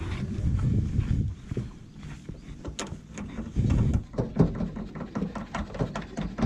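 Irregular clicks and knocks of hands handling electric trolling-motor power cables and their metal ring terminals in an aluminium boat's battery compartment, with a sharper clack about four seconds in. Low muffled rustling of a jacket sleeve rubbing on the microphone comes twice.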